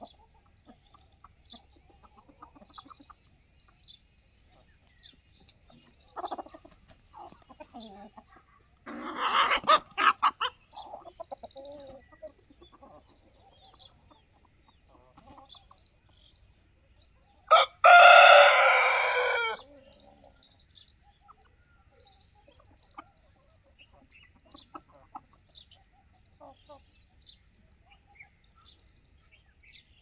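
Aseel roosters crowing twice: one crow about nine seconds in, and a louder crow of about two seconds with a falling pitch about eighteen seconds in. Chickens cluck softly before them.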